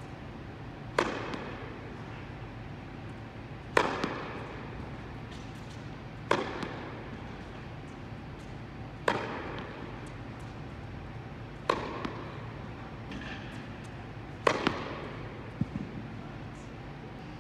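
Tennis balls struck with rackets in a baseline rally: six sharp hits, about one every two and a half to three seconds, each echoing in the indoor hall.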